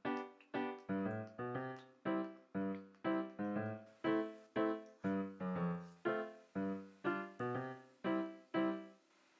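Background piano music: a steady run of notes, each struck and fading away, with a short pause near the end.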